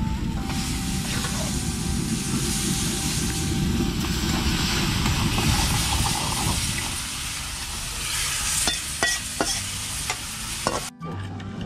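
Mushroom curry sizzling as it fries in a metal pan, with a metal spatula stirring and scraping. The sizzle is strongest for the first two-thirds, then eases, leaving a few sharp scrapes and clicks of the spatula on the pan.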